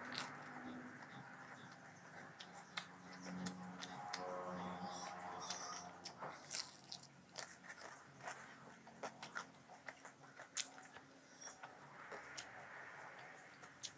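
Close-up crunching and chewing of a crisp fried snack, with sharp bite crunches scattered irregularly throughout.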